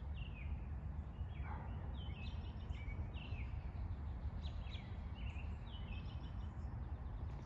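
Wild birds chirping, with short high calls that fall in pitch repeating every second or so over a steady low rumble.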